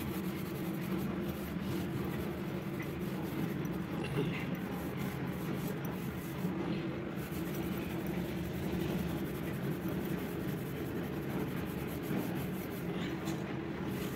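Kitchen wall tiles being scrubbed by hand with a small scrubber, a steady rubbing over a constant low hum.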